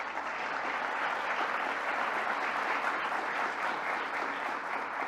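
Large audience applauding steadily, easing off a little near the end.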